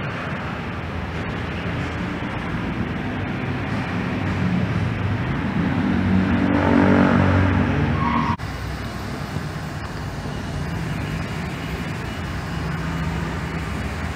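Car engine and traffic noise: a steady low hum that grows louder around six to eight seconds in, then cuts off abruptly just past eight seconds and gives way to a quieter, steady hum.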